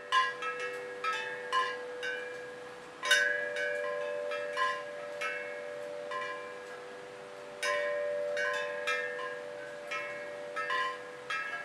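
Hanging aluminium tube chimes of a handmade prototype ringing, with struck notes coming at irregular intervals about twice a second. Each note rings on and overlaps the next, over a lower tone that keeps sounding.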